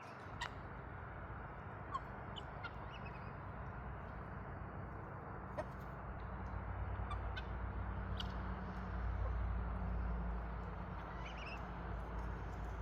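Backyard ambience: a steady low rumble with a few sharp taps and some short bird calls. The rumble swells somewhat past the middle.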